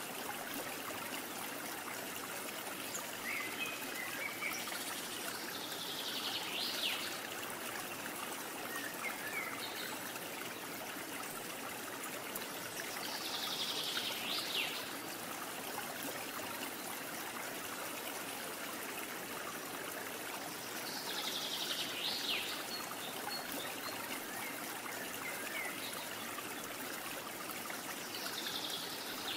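Yarn drawn through crocheted fabric with a tapestry needle: a soft swish about every seven seconds as each stitch is pulled tight, over a steady hiss like running water.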